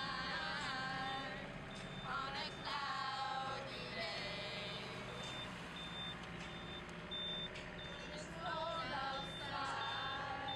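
A vehicle's electronic warning beeper sounding a short high beep about twice a second, over a steady engine hum, with a group of people singing at times.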